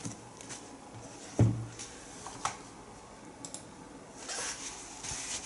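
Quiet handling of packaging by hand: a soft knock about a second and a half in, a click a second later, and a brief rustle near the end.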